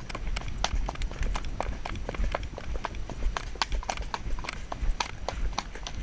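Horse's hooves clip-clopping on a stony dirt track, heard from the rider's helmet: a quick, uneven run of hoof strikes, several a second, over a low rumble.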